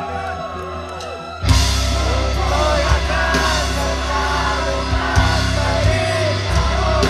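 Live rock band with electric guitars playing over a loud PA. About one and a half seconds in, the full band comes in loud with heavy bass, and singing runs over it.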